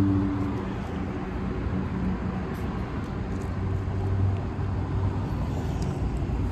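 Road traffic: a car engine running with a steady low hum over a wash of road noise, swelling a little about four seconds in.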